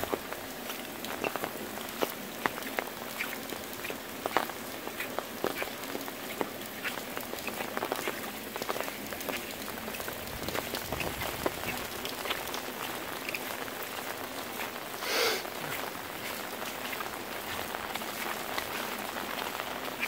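Rain falling on wet concrete pavement: a steady hiss with scattered sharp drip ticks. About fifteen seconds in, one brief louder sound stands out.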